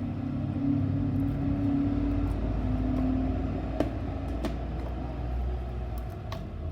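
A low motor hum, much like a vehicle engine running, with a few held tones that shift in pitch. It eases off about six seconds in. A few light clicks are heard over it.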